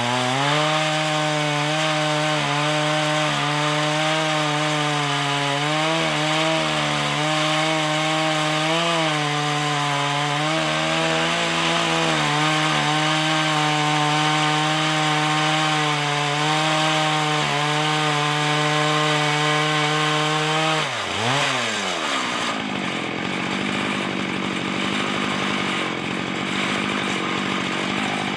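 Chainsaw mill ripping lengthwise through a log, the saw's engine held at full throttle with a steady, slightly wavering note under cutting load. The chain is on its fourth such cut and may be getting a little dull. About three quarters of the way through, the engine pitch falls sharply and the saw runs on at a lower note.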